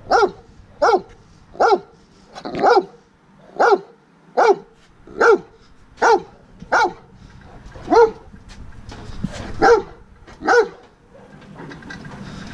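Large grey dog barking repeatedly, about a dozen deep barks at roughly one a second, stopping near the end.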